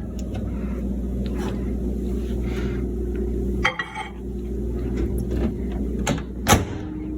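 Microwave oven running with a steady low hum. The hum breaks off briefly with a click a little past halfway, then carries on, and a sharp click is heard near the end.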